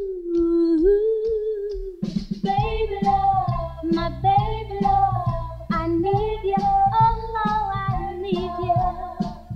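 Background music: a song with a singing voice carrying a held, wavering melody, and a steady beat with bass coming in about two seconds in.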